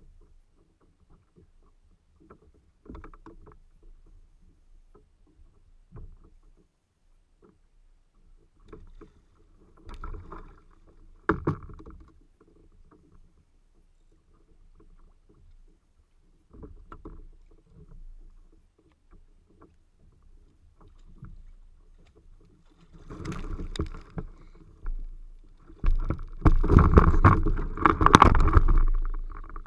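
Sea water slapping and splashing against a fishing kayak's hull, with scattered knocks from the rod and reel and one sharp knock about eleven seconds in. The last several seconds grow loud with splashing and spray as the hooked fish fights at the side of the kayak.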